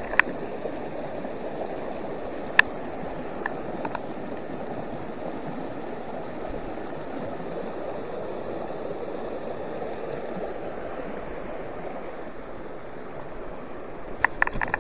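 Steady rushing of a shallow, rocky trout stream over stones and a small cascade. A few sharp clicks sound over it near the start and again in a short cluster near the end.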